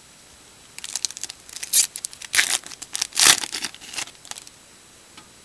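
Foil wrapper of a baseball card pack crinkling and tearing as it is ripped open, a run of crackly rustles starting about a second in and dying away after about three and a half seconds.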